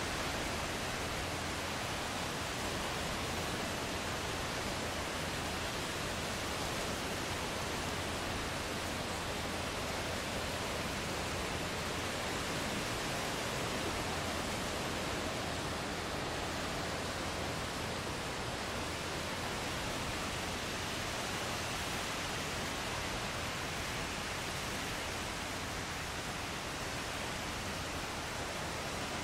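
Ocean surf making a steady, even rush, with no single wave breaking out above the rest.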